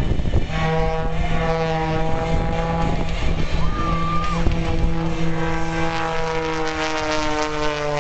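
Propeller engine of an aerobatic airplane droning steadily in flight, its pitch slowly falling over the last couple of seconds.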